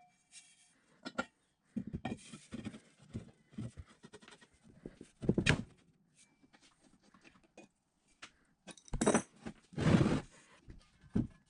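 Steel drill press column being handled and seated in its cast iron base socket: a string of metal-on-metal knocks and clunks. The loudest comes about five and a half seconds in, with two longer ones around nine and ten seconds.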